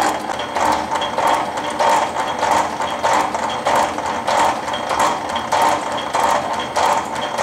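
Rhodes 7-inch metal shaper running: the ram strokes back and forth in a steady, even rhythm of mechanical clatter as the tool takes a cut across an aluminum casting.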